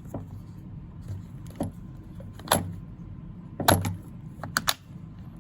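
Sharp metallic clicks and clacks from a drum magazine being handled and fitted to an Umarex HDR68 less-lethal marker: several separate clicks, the loudest a little past the middle and a quick run of three near the end.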